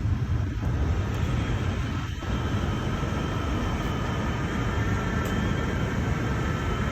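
Lennox packaged HVAC unit running steadily: a low rumble of fans and compressor with a faint steady whine above it.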